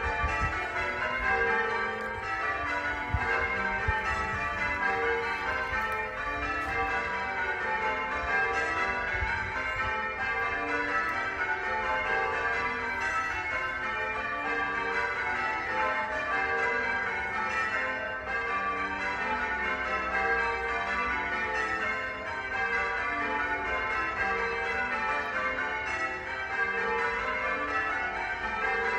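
Church bells ringing: several bells of different pitches struck one after another in a steady, unbroken rolling sequence, their tones overlapping.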